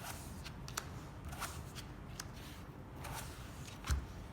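Playing cards being dealt and turned over on a table: soft slides and light taps, with a louder knock near the end.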